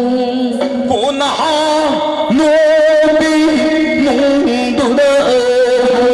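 Meitei Lai Haraoba ritual song, sung with instrumental accompaniment: voices holding long, wavering notes over a steady low note.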